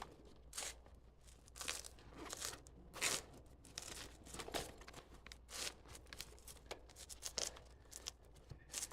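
Crunching footsteps at a walking pace, about one every two-thirds of a second.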